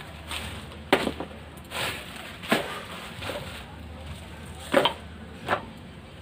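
Cooking utensils knocking: about five sharp knocks spread over six seconds, the loudest near the start and again a little past the middle.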